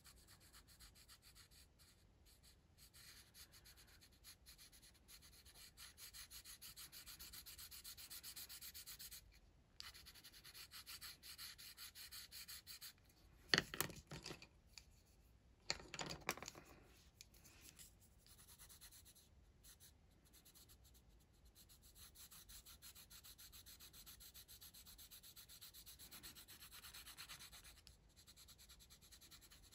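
Faint scratching of a sharpened Brutfuner oil-based colored pencil shading back and forth on paper, with two short knocks near the middle.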